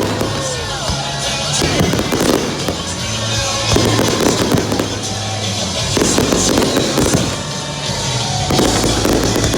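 Fireworks bursting and crackling in clusters about every two seconds, over music with a steady low bass.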